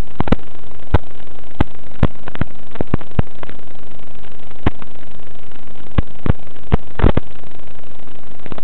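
Loud, steady static hiss from the audio channel of an analog 5.8 GHz FPV video receiver, broken by frequent sharp clicks and pops, with a brief crackling cluster about seven seconds in.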